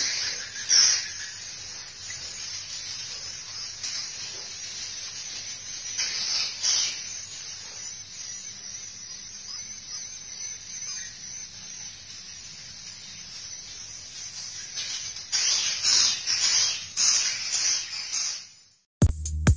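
Swiftlets twittering: a dense, high, hissy chirring with louder bursts of calls about a second in, around six seconds, and again from about fifteen to eighteen seconds. Electronic dance music cuts in at the very end.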